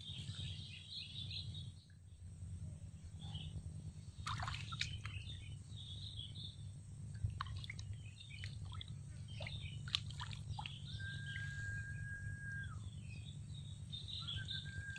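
Small birds chirping and calling in short bursts, with a steady low background hum. A long, level whistle sounds twice in the second half.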